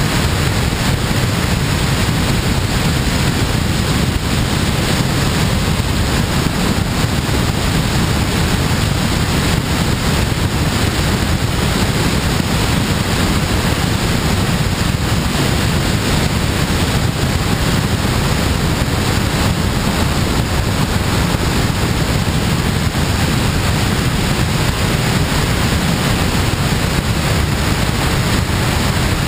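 Steady rush of airflow over a glider in flight, buffeting the microphone of a wing-mounted camera; even and unbroken, heaviest in the low end, with no engine.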